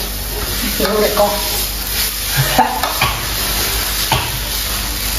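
Noodles sizzling in a wide metal pan on a gas burner while a metal spatula stirs and scrapes through them, with scattered clicks of the spatula against the pan.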